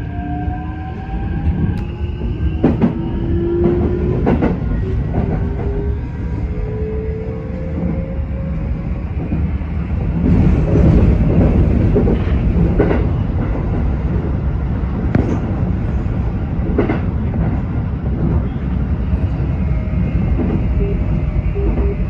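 Keikyu electric train running on the line: the motor whine rises in pitch over roughly the first half as the train accelerates, over a steady rumble of the running train, with the wheels knocking over rail joints and points now and then and a louder stretch of running noise a little before the middle.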